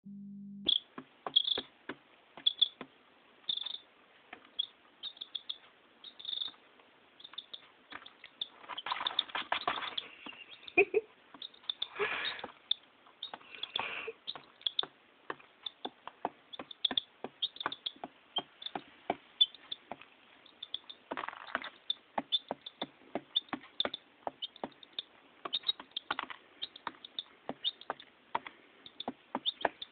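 A chick pecking at feed on newspaper: a quick, irregular run of sharp beak taps, two or three a second, with a few short scratchy rustles in between.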